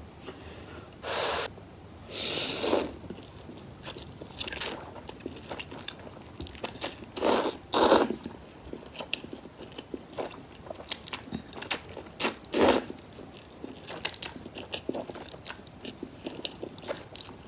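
Close-miked eating of spicy chicken instant noodles: chewing with many small wet mouth clicks, broken by about six louder mouthfuls lasting up to half a second each.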